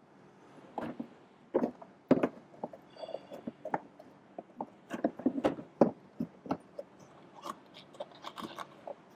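Irregular hard-plastic clicks, knocks and scrapes of an aftermarket cold-air-intake air box assembly being worked into place, its prongs pushed into rubber grommets. The loudest knocks come about two seconds in and again around five to six seconds in, with a brief high squeak near three seconds.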